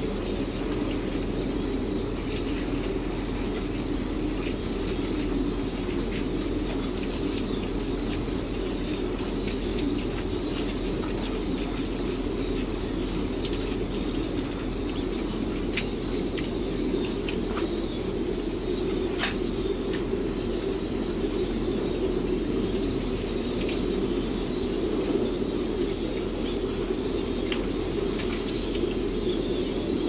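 Many domestic pigeons cooing together in a pigeon house, a dense, steady chorus, with scattered sharp clicks and some wing flapping.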